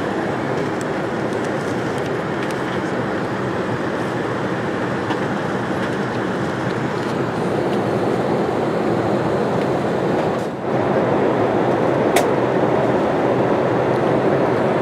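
Steady cabin noise of an Airbus A380 in flight, an even rushing roar of airflow and engines. The level dips briefly about ten seconds in, and a small click follows soon after.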